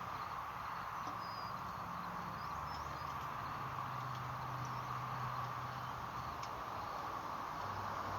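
Steady outdoor background hiss with a low hum and a few faint, short bird chirps, plus one or two faint clicks.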